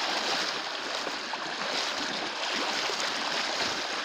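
Fast-flowing floodwater running with a strong current, a steady rushing.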